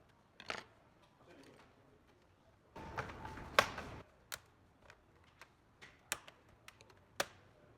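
Irregular sharp clicks and taps of small hard parts being handled, with a short denser rattling, scraping stretch about three seconds in that holds the loudest click.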